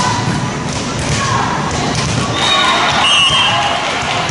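Volleyball gym between rallies: volleyballs thudding and players' voices echoing in a large hall. There is a short high tone about three seconds in.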